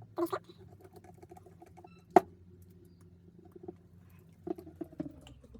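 Light, rapid clicking of screws being worked by hand into the plastic housing of a DeWalt DCF850 impact driver, with one sharp click a little over two seconds in and a few more clicks near the end.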